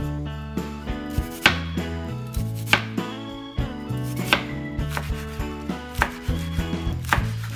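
Chef's knife slicing an onion and then lettuce on a cutting board: sharp chops against the board, roughly one a second.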